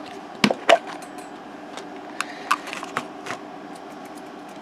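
Light clicks and taps from toys and packaging being handled at a table, with two sharper clicks about half a second in, over a steady background hum.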